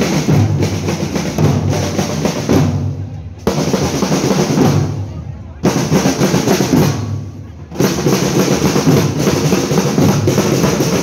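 A school marching band's drum line, snare drums and bass drums, beating a marching cadence together. The drumming drops back briefly and comes back in loud three times, every two seconds or so.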